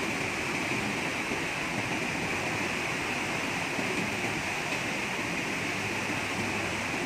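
Steady rush of flowing water, an even hiss that neither rises nor falls.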